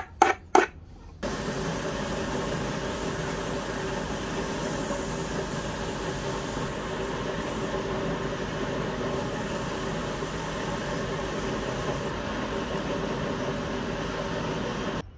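A few quick strokes of a hand file on metal, then a power tool's motor switches on about a second in and runs steadily with a constant hum until it cuts off near the end.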